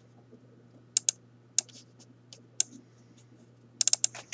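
Scattered keystrokes and mouse clicks at a computer: a double click about a second in, single clicks after it, then a quick run of about five clicks near the end, over a faint steady low hum.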